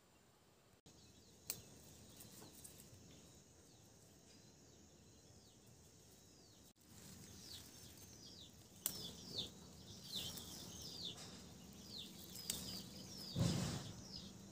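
Small birds calling: repeated short downward-sliding chirps, sparse at first and then about one a second in the second half, over faint background noise. A brief low rumble near the end.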